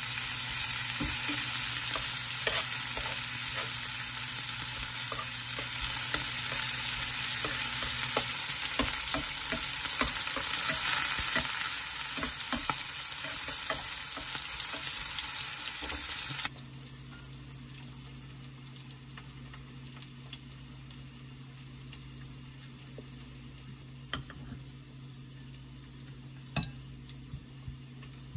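Slices of pork belly sizzling in a frying pan, with the clicks and scrapes of tongs turning the meat. About sixteen seconds in, the sizzle cuts off abruptly, leaving a quiet background with a few light taps.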